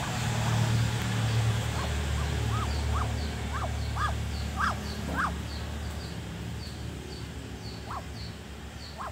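Broody Muscovy duck on its nest giving a run of short rising-and-falling calls as it is handled. The calls come in quick succession, get louder over a few seconds, and one more follows near the end. A low rumble in the first seconds and faint, rapid high chirps run underneath.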